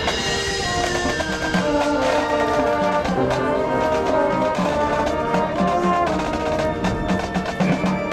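High school marching band playing: brass chords over drums and percussion, with a loud hit right at the start and drum strokes growing busier in the second half.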